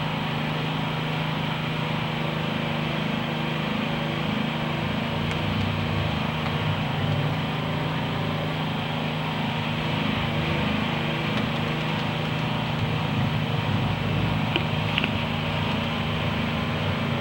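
Engine of road-works machinery running steadily, a constant low drone.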